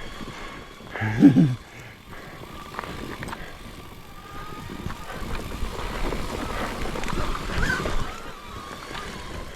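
Thin steady whine of a DJI Neo 2 drone's propellers following close behind, over a rumble of tyres rolling on a rough forest trail with wind on the microphone. A short voiced sound cuts in about a second in.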